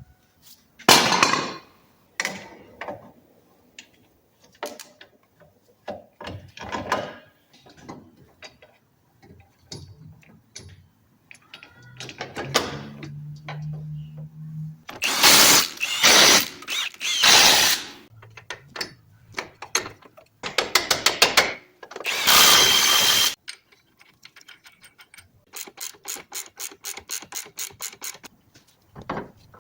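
Hand tools at work on a car's front suspension: a ratchet wrench clicking in quick runs of about six clicks a second, among metal knocks and clanks. There are a few louder, longer stretches of noise, the loudest in the middle and again a little later.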